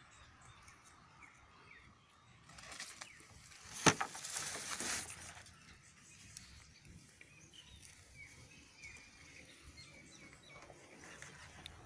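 Quiet open-air ambience with faint short chirps. About three seconds in, a brief rush of noise rises and fades over some two seconds, with one sharp click at its peak.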